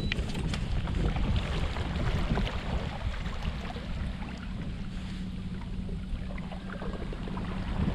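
Wind buffeting the microphone over water lapping against a kayak's hull, with scattered small clicks and knocks. A faint steady low hum runs through the second half.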